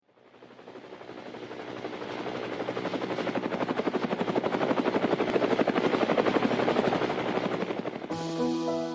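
A rapid mechanical chopping throb that swells up from silence and grows louder. Near the end, piano music cuts in over it.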